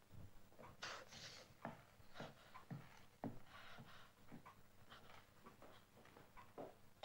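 Faint breathy puffs, as of a man breathing heavily, with a few small knocks and rustles; otherwise close to silence.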